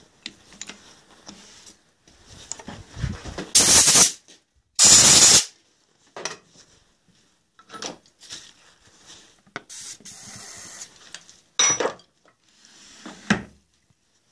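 Two short, loud hissing sprays, the first about three and a half seconds in and the second about a second later, among scattered rubbing, scraping and clinking of hand work on a stopped metal lathe.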